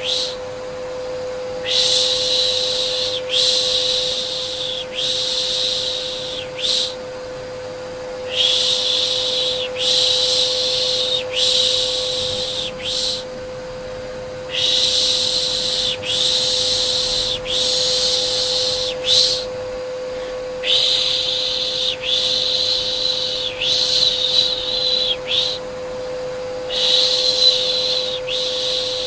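Rhythmic 'shh' shushing, as used to soothe a baby, in sets of three long shushes and a short one repeating about every six seconds, over the steady hum of an electric vacuum cleaner.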